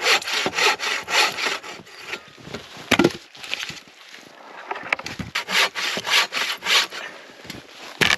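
Hand saw cutting through wood in quick back-and-forth strokes, about four a second, in two runs with a pause in between.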